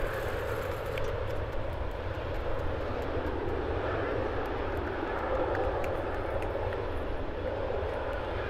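Boeing 737-800 jet engines running on the runway: a steady rumble with a rushing noise.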